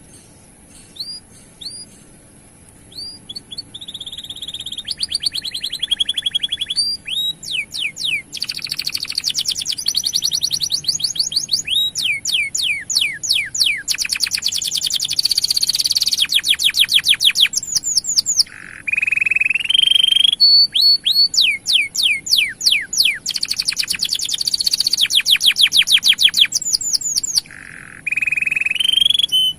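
Male canary in full song, a long continuous rolling song: fast trills of repeated descending high notes, broken now and then by held buzzy notes. It starts softly about a second in and grows louder after a few seconds.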